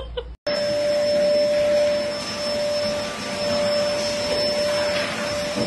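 Vacuum cleaner motor running steadily with a constant whine. It starts abruptly about half a second in.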